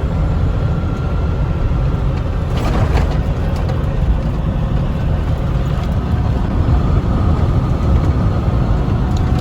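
Diesel truck driving on the road: a steady low engine and road rumble, with a brief click about three seconds in.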